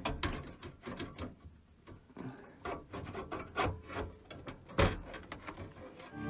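Motherboard being set into a PC case and shifted to line up with its standoffs: scattered light knocks and rubbing of the board and metal case, the loudest knock nearly five seconds in.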